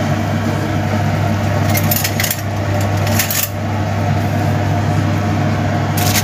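A steady low hum with a few short clicks and scrapes, about two seconds in, around three and a half seconds and near the end: a metal utensil against a foil-lined baking tray of roasted ribs and vegetables.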